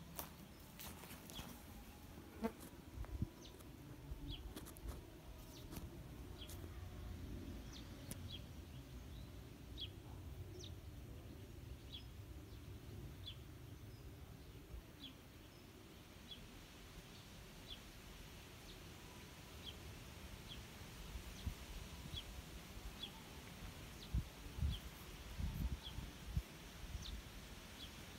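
An animal repeating a short, high, falling chirp about once a second, over a faint low rumble, with a few soft knocks about three seconds in and again near the end.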